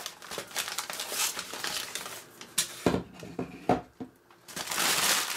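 Newspaper packing crinkling and rustling as it is pulled off a 3D-printed plastic part, with a couple of knocks around the middle and a longer burst of crumpling near the end.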